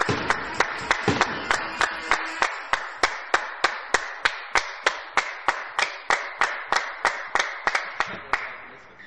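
Spectators clapping in rhythm, a steady beat of about four claps a second over general applause that dies away; the beat fades and stops near the end.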